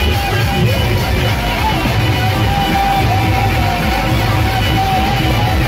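Loud live band playing Adivasi timli dance music: a heavy, pounding low drumbeat, with a held, wavering lead melody coming in about two seconds in.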